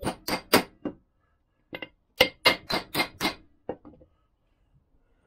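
Hammer tapping a seal-driver tool to drive an oil seal into a Lambretta's aluminium magneto flange: sharp strikes about four a second in three short runs, the last few lighter, stopping about four seconds in.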